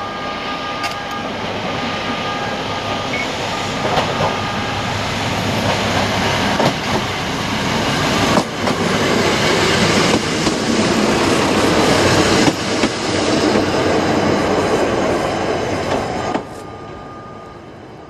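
A KTR 700 series single-car diesel railcar approaching and passing close by: engine and wheel noise grow steadily louder, with a few sharp clicks from the wheels over the rail joints as it goes past. The sound drops off suddenly as the car clears, about a second and a half before the end.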